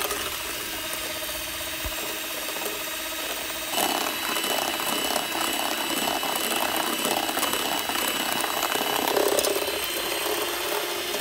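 Electric hand mixer running steadily, its twin beaters whipping eggs and sugar into a pale foam. It gets a little louder about four seconds in.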